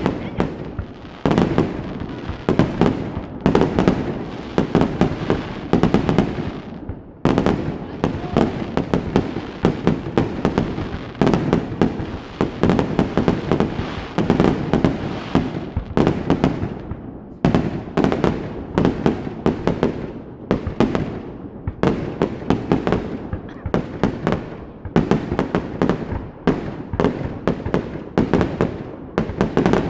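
Fireworks display in a dense, continuous barrage: rapid sharp bangs and crackling bursts, several a second, with only brief lulls.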